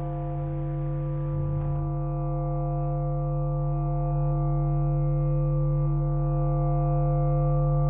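Electronic sine-wave drone: several steady pure tones layered into a chord over a strong low tone, slowly swelling in volume. A soft hiss underneath stops about two seconds in.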